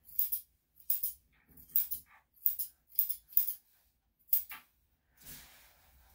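Grooming scissors snipping through a dog's fur: about eight crisp, short snips at an uneven pace.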